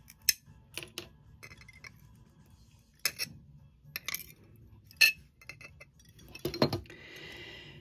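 Clear sheet glass snapping and clinking as small pieces are broken and nibbled off a scored circle with glass pliers: a scatter of sharp clicks a second or more apart, with a soft rasp near the end.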